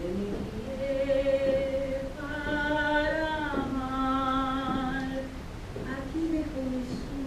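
A solo voice singing a slow, wordless-sounding melody in long held notes, one to two seconds each, with a slight waver on each note.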